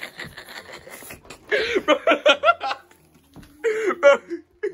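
A young man laughing in two runs of quick, choppy 'ha' pulses: a longer one about a second and a half in, and a shorter one near the end.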